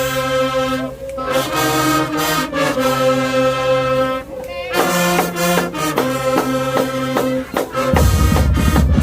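Marching band brass section playing held chords, then a run of short punched notes; the drum line with bass drums comes in loudly near the end.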